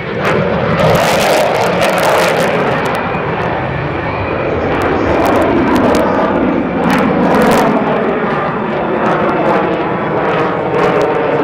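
F-16 fighter jet engine at full power during a display pass, a loud rushing roar that swells suddenly at the start, with crackling bursts about a second in, around two to three seconds in and again around seven seconds in.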